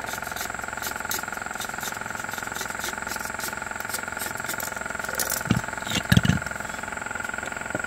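A motor running with a steady hum and whine, with a few knocks about five and a half and six seconds in.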